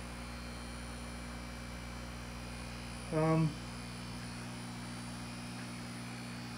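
Steady electrical hum of a fish room's aquarium air pumps and equipment, running continuously, with a brief hummed "mm" from a man about three seconds in.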